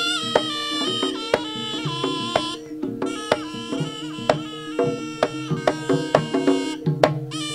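Javanese jaranan music: a shrill reed melody on a slompret over steady held drone notes, driven by sharp, quick hand-drum (kendang) strokes.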